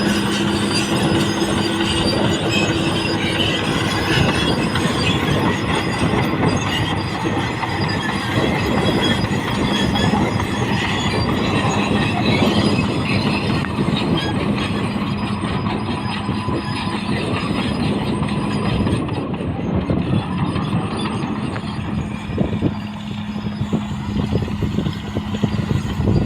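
Caterpillar D6R XL crawler bulldozer working: its diesel engine runs with a steady drone while the steel tracks clank and squeal continuously.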